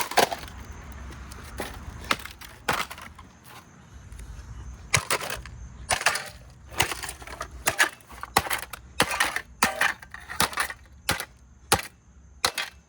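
A Roomba robot vacuum being smashed: about twenty hard, irregular blows crack and break its plastic body, with a short lull partway through before the strikes come faster.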